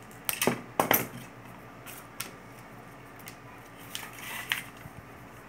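A few sharp clicks and light clatter of small hand tools and the plastic battery case being handled while wires are worked, most of the clicks within the first second, with a short scrape about four seconds in.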